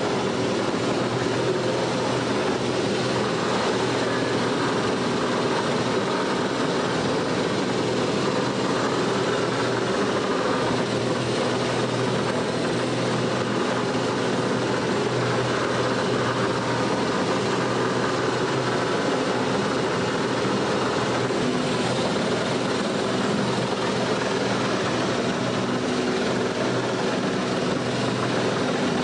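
A boat's engine running steadily under way, with a constant rush of wind and water over it.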